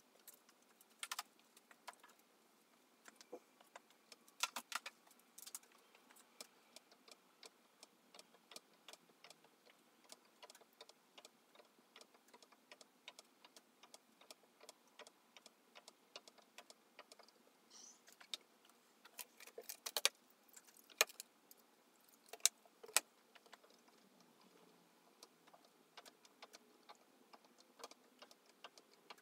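Faint, scattered small clicks and ticks. Sharper clicks come about a second in, around four to five seconds in, and in a cluster around twenty to twenty-three seconds in.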